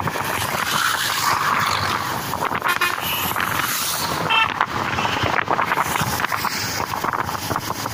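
Wind buffeting the microphone on a motorcycle riding at just over 30 km/h, with road and traffic noise beneath it. Two brief high tones sound near the middle, about a second and a half apart.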